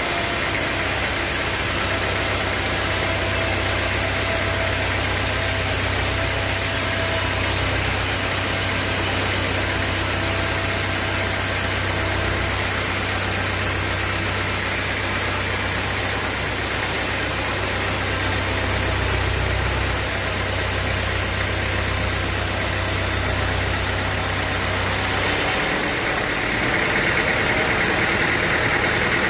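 Sawmill machinery running steadily with an engine drone. About 25 seconds in, the low drone drops away and a higher whine comes up.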